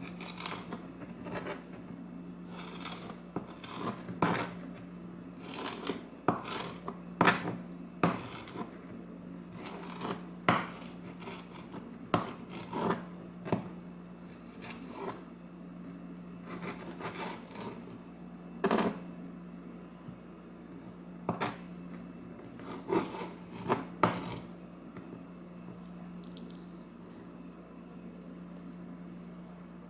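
Kitchen knife cutting raw bacon on a plastic cutting board: irregular knocks of the blade against the board, which stop near the end. A steady low hum runs underneath.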